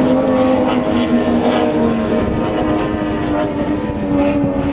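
Outboard engine of a wooden racing powerboat running at high revs as the boat planes past, a steady engine note that dips a little in pitch and then rises again.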